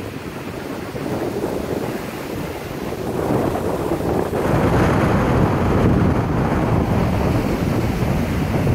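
Wind buffeting the microphone over the wash of small breaking surf, a rough low rumble that grows louder about four seconds in.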